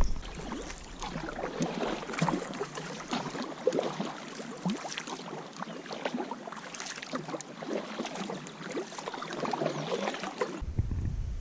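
Water splashing and dripping around a kayak: a dense run of small, irregular splashes and drips, which changes abruptly near the end.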